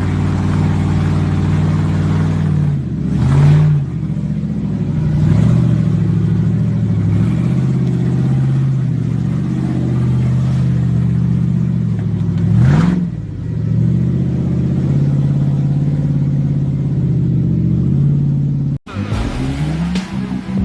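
Off-road vehicle engine running under load. Its pitch dips and climbs back up twice. Near the end it breaks off abruptly and another engine sound follows.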